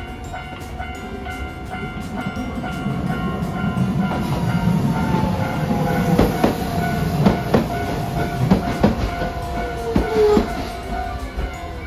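Hiroden 3950-series articulated tram running close past and slowing for its stop: a low rumble from the running gear, the wheels clacking sharply over rail joints several times, and a whine falling in pitch as it brakes. A level-crossing bell dings steadily under it.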